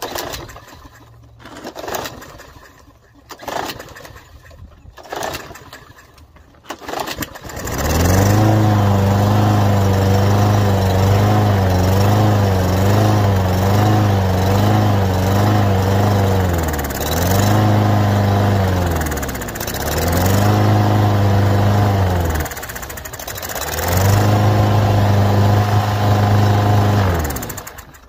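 Troy-Bilt push mower's engine being pull-started: several pulls on the recoil starter about a second apart, then the engine catches about eight seconds in and runs steadily. While fogging oil is sprayed into the open air intake it bogs down and recovers three times, then dies just before the end.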